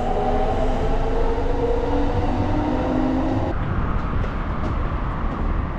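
Train running, a chord of several steady tones over a low rumble; the tones cut off about three and a half seconds in, leaving the rumble.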